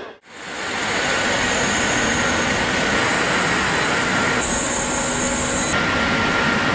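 Steady whirring machine noise with a high hiss from a pantograph–catenary test rig running. The hiss grows louder for a second or so past the middle.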